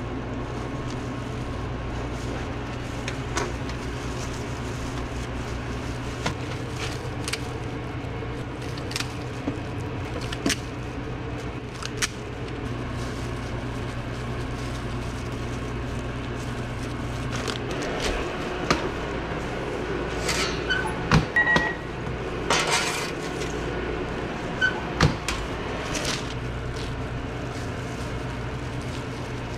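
A sub sandwich being assembled by gloved hands at a steel prep counter: scattered clicks, knocks and rustles of utensils, pans and wrapping paper over a steady low hum. The handling gets busier and louder about two-thirds of the way through, as lettuce and other toppings go on.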